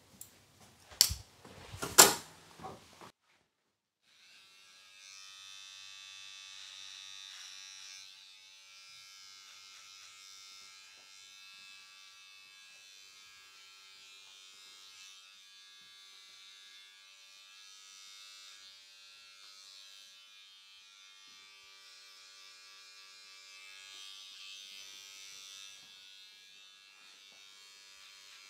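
Two loud sharp clacks near the start, then after a short pause an electric hair trimmer buzzes steadily, going on through the rest.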